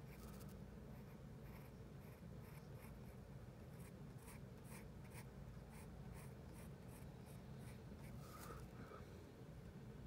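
Soft graphite pencil scratching on paper in many short, quick strokes, faint, over a low steady hum.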